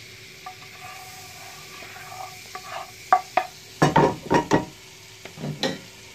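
A utensil stirring pancake batter in a bowl, knocking sharply against the bowl about half a dozen times in quick succession from about three seconds in, with once more near the end. A faint steady sizzle of frying runs underneath.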